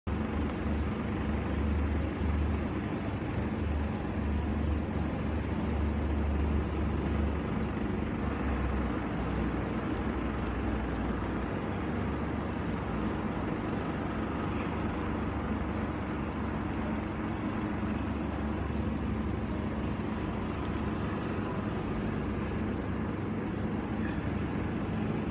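Steady hum and rumble of an airport terminal heard through the window glass, with a deep low rumble that is strongest for the first seven or eight seconds and then eases off.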